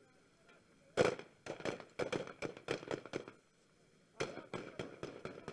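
Rifle fire: a rapid string of sharp shots begins about a second in and lasts a couple of seconds, several shots a second, with the first the loudest. A second string of shots starts near the end after a short pause.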